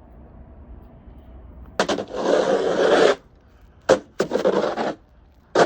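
Snow shovel scraping through snow twice, each stroke starting with a sharp knock and lasting about a second, with a third starting at the very end.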